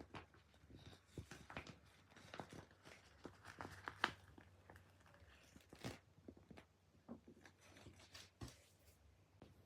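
Faint handling noises: scattered clicks and crinkly rustles, with one sharper click about four seconds in.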